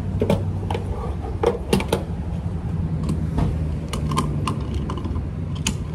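About a dozen irregular sharp clicks and taps over a steady low hum, the sound of handling at a gas pump.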